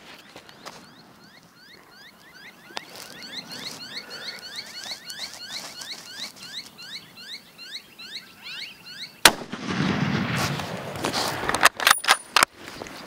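Birds calling with many short squeaky chirps, then about nine seconds in a single shot from a Tikka .270 bolt-action hunting rifle, its echo rolling on for a couple of seconds. A few sharp clicks follow near the end.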